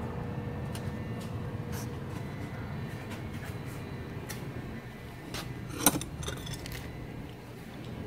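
Scattered light metallic clicks and clinks as the serpentine belt and a wrench are handled around the engine's pulleys, with one sharp click about six seconds in, over a steady low hum.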